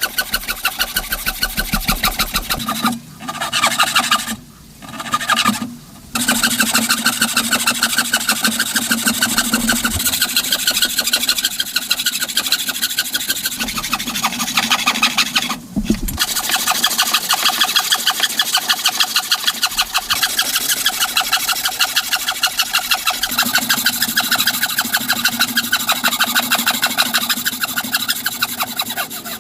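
Rhythmic strokes of a tool working wood, sawing or rasping at about two to three strokes a second, with a few brief pauses.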